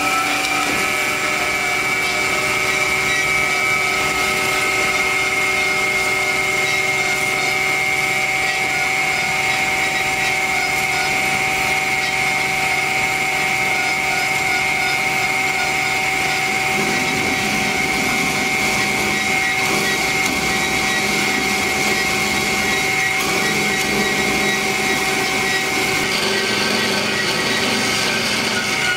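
DoAll C4100A automatic horizontal band saw running, a steady machine noise with a few steady whining tones. A little past halfway the sound grows fuller and rougher.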